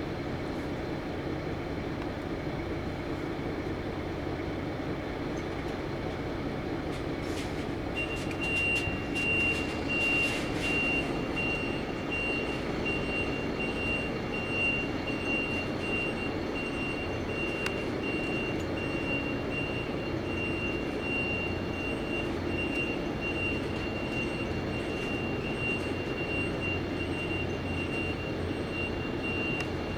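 Tecnam P2006T's twin Rotax 912 piston engines and propellers running steadily. A steady high-pitched whine joins about eight seconds in, along with a few clicks.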